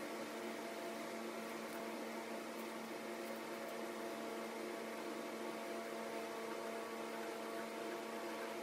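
Steady hum of a running motor or fan in a woodshop, even in level with several fixed pitches, plus a few faint light ticks.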